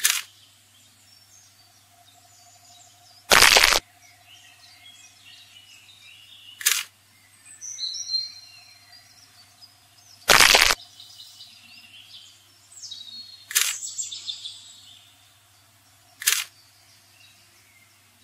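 Five sharp cracks about three seconds apart; the second and fourth are longer and louder. Birds chirp faintly between them, over a faint steady hum.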